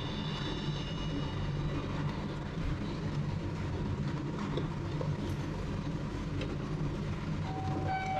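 Steady low mechanical rumble and hum of a revolving-sushi restaurant, with its conveyor running. A falling two-note electronic chime sounds near the end.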